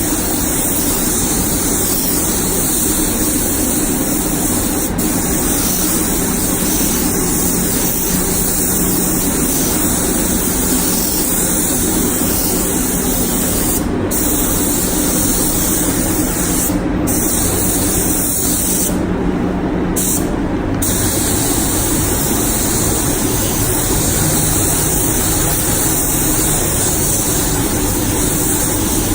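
Compressed-air spray gun spraying primer: a steady loud hiss of air and atomised paint, with the trigger let off briefly about halfway through, again shortly after, and for about two seconds a little later. A steady low hum runs beneath it.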